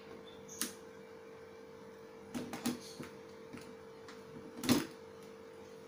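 Plastic blender jug being handled and set back onto its motor base: a few short knocks and clicks, a small cluster in the middle and the loudest knock about three-quarters of the way through, over a steady faint hum.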